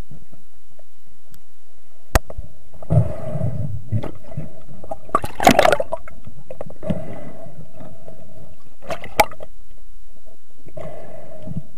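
Underwater water noise on a diver's camera: gurgling and bubbling, with scattered sharp clicks and a louder bubbling burst about five and a half seconds in.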